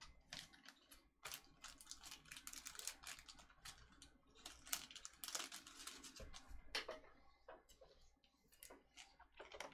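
Near silence broken by faint, irregular light clicks and taps.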